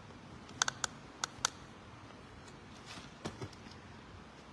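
Light clicks and taps against quiet room tone: five in a quick cluster from about half a second to a second and a half in, then two softer ones a little past three seconds.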